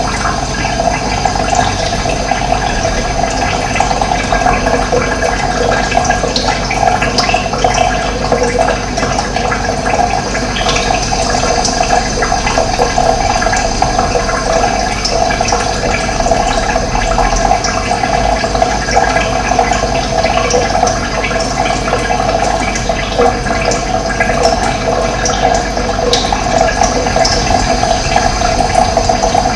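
Running water flowing steadily, an even rushing sound.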